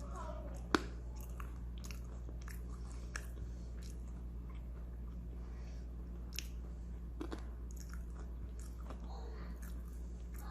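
Colouring pens on paper: scattered light clicks and taps with faint scratching over a steady low hum.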